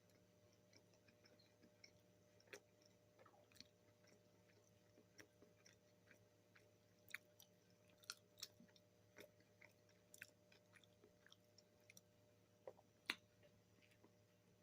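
Faint, close-up chewing of fast food, heard as scattered small wet clicks and smacks, with a sharper click about 13 seconds in.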